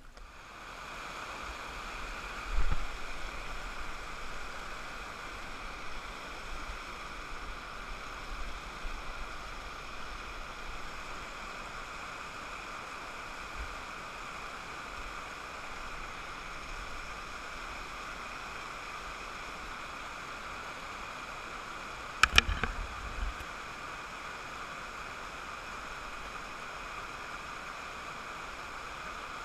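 Steady rush of river water spilling over a low rock-ledge waterfall. A low thump comes about three seconds in, and a short cluster of sharp knocks, the loudest sound, about twenty-two seconds in.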